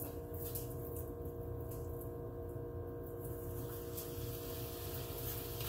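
Soft, faint pats of hands shaping raw ground turkey into a burger patty, over a steady kitchen appliance hum.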